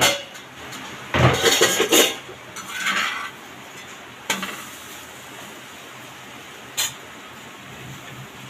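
Metal cookware and utensils clattering and clinking: a noisy stretch of clatter in the first two seconds, another shorter one about three seconds in, then two single sharp clinks, over a steady hiss.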